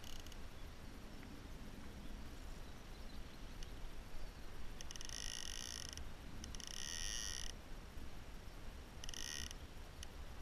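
Fly reel's click ratchet buzzing in several short bursts, the longest about a second, as line is taken or reeled in while a hooked fish is played on a bent fly rod.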